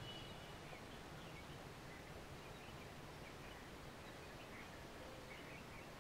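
Quiet background hiss with faint, scattered short high chirps.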